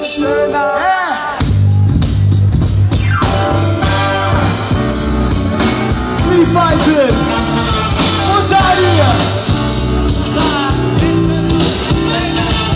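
Live hip-hop/jazz-pop band with a horn section playing. After a sparse opening with sliding melody lines, the full band comes in with a heavy bass line about a second and a half in, and wavering melody lines ride over the groove.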